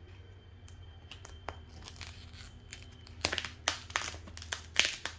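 Foam parts of a toy RC jet being pushed and worked into place by hand to lock them: a run of rubbing, creaking and clicking, sparse at first and busier and louder from about three seconds in.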